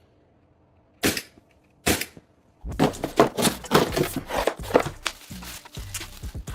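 Two sharp cap-gun-like pistol shots, a little under a second apart, followed from a couple of seconds in by a dense, loud run of rapid clattering pops.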